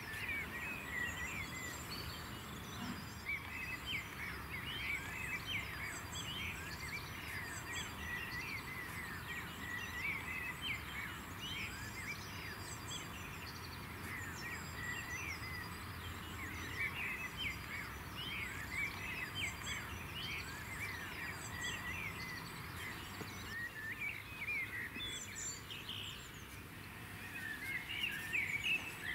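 Several songbirds singing at once: many overlapping chirps and short warbled phrases, with a higher, repeated call pattern above them, over a soft steady background hiss.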